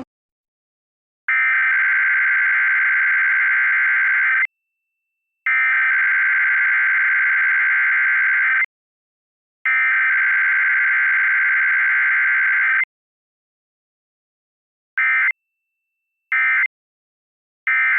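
Emergency Alert System SAME data bursts. Three long bursts of warbling digital tones, each about three seconds, come about a second apart: the alert header. After a short pause come three brief bursts: the end-of-message code, closing a Required Weekly Test with no attention tone or voice message between.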